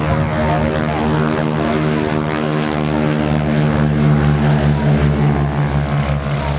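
Engines of two wingwalking biplanes running at full power on their take-off run: a loud, steady, pitched propeller drone that begins to pulse about four seconds in.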